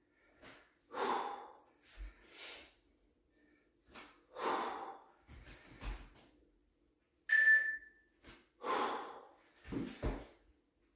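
A man's hard breathing during press-ups, with short forceful exhalations about every one to one and a half seconds, and a few soft thumps.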